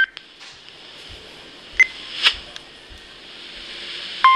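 Low steady hiss with a few short clicks and two brief blips, then near the end a weather radio's Emergency Alert System alert tone starts: one steady high-pitched tone.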